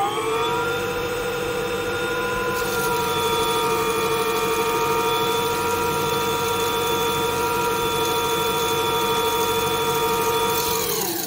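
DIY CNC lathe spindle turning the chuck at about 1000 RPM: a steady whine of several tones during a light 0.01 mm finishing pass on a 3D-printed metal part. A hiss joins about two and a half seconds in. Near the end the spindle is stopped with the e-stop and the whine falls away.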